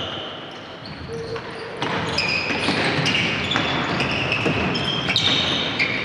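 Futsal play on a wooden gym floor: players' indoor shoes squeaking in short bursts and the ball being kicked and bouncing, busier from about two seconds in.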